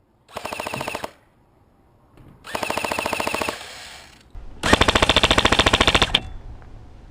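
Three bursts of rapid automatic gunfire, each about a second long, the last one longest and loudest.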